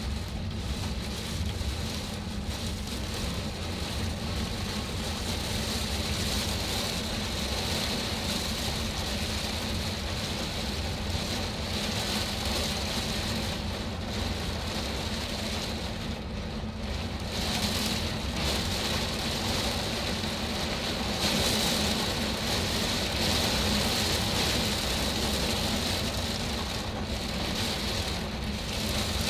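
Heavy storm surf breaking over shoreline rocks, a continuous wash of crashing waves, with wind rumbling on the phone's microphone. It grows somewhat louder about two-thirds of the way through.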